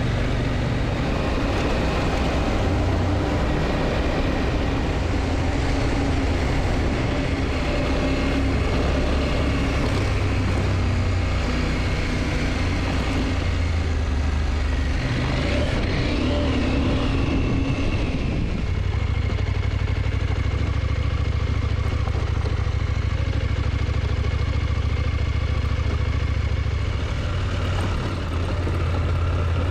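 KTM motorcycle engine running under way, with wind and road noise. About two-thirds of the way through the note shifts, and the engine settles to a steadier, lower sound.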